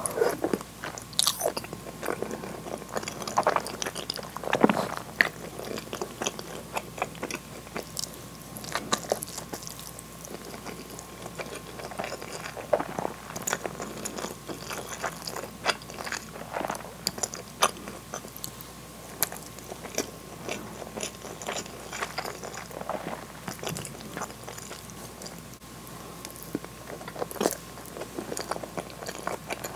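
Close-miked chewing and wet mouth smacks of a person eating a mouthful of sauce-covered hamburg steak and white rice, with irregular sharp clicks and smacks.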